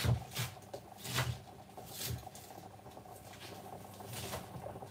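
Fresh spinach leaves being handled: a handful of soft, irregular rustles and light taps, spaced about a second apart.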